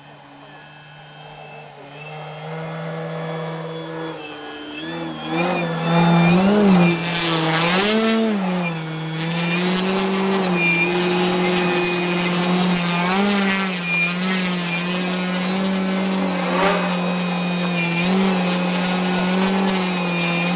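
Propeller and motor of a 2-metre Sebart Su-29 radio-controlled aerobatic plane. It grows louder as the plane comes in close, its pitch swinging up and down with throttle bursts several seconds in, then settles into a steady drone as the plane hangs nose-up in a hover.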